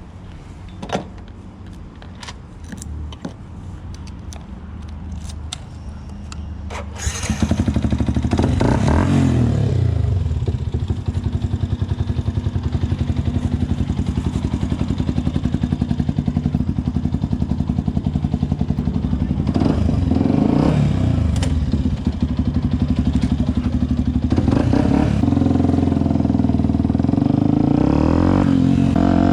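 Yamaha WR 125X single-cylinder four-stroke motorcycle engine with a BlackWidow aftermarket exhaust, running at idle with a few light clicks. About seven seconds in it becomes much louder and is blipped up in revs several times, settling back to idle between blips.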